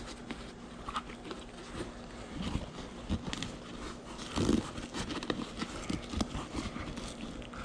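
Handling noises from a Givi EA100B soft saddlebag and its webbing straps being fitted: fabric rustling with irregular clicks and knocks, a louder cluster about halfway through.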